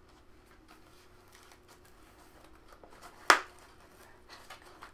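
A cardboard product box being handled and pried at, with faint rustling and small clicks, and one sharp, loud snap a little over three seconds in.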